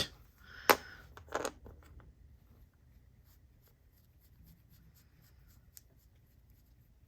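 Small hard clicks and clacks of magnets and small parts being handled on a desk, the loudest about a second in. Faint scratchy ticks follow as glue is rubbed off the magnets.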